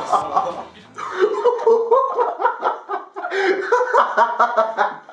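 Young men's voices laughing and chuckling while talking, with the tail end of a song's music stopping about a second in.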